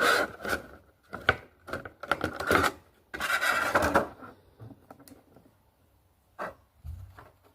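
Rustling and clicking of an action figure and its packaging being handled during unboxing: irregular bursts of scraping and rustling for about four seconds, then a few separate light taps near the end.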